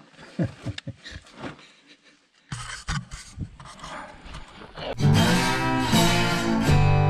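Scuffs and scrapes of a person crawling over sand and stone in a low rock crevice, then guitar music starts loudly about five seconds in.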